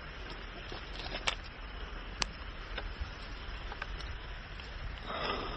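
A few sharp clicks from hands working the breech of a homemade big-bore PCP airgun as a bullet is loaded, over steady rustling from handling. There is a short scraping rustle near the end.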